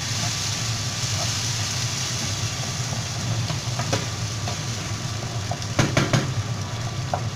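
Hot water poured from an electric kettle into a hot frying pan of pilaf, hissing and sizzling steadily over a steady low hum. A few sharp clicks of a spoon against the pan come about six seconds in.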